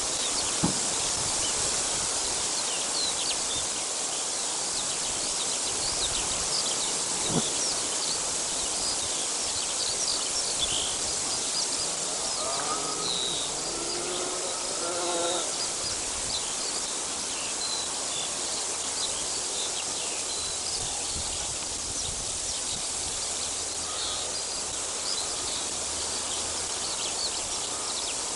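Outdoor ambience: a steady rushing noise with many small birds chirping high above it. A short pitched call of a few notes sounds about halfway through.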